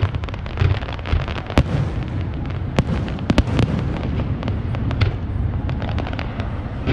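Fireworks display: aerial shells bursting, with low booms under a dense run of many sharp cracks and pops.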